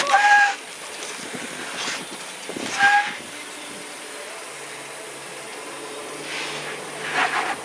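A Jeep creeps down a steep rock-ledge descent, with a steady hiss of tyres and body noise, short scraping bursts and a low engine hum. A short electronic beep sounds twice, about three seconds apart: a phone ringing with an incoming call.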